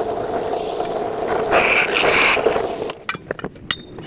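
Power drill boring a hole, its motor running steadily with a grinding, scraping edge that swells twice, then stopping about three seconds in; several small sharp clicks and taps follow.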